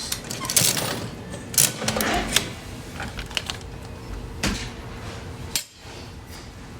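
Clicks and clattering from a coin-operated claw machine as it is played, busiest in the first couple of seconds and then sparse single clicks, over a faint steady machine hum.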